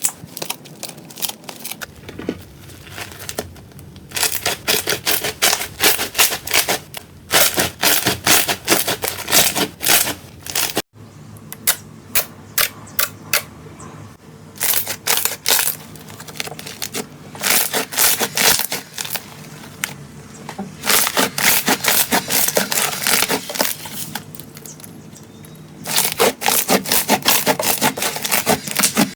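Slime being squeezed, pressed and poked by hands, giving rapid clusters of sticky clicks and crackling pops in bursts, with a sudden break about 11 seconds in.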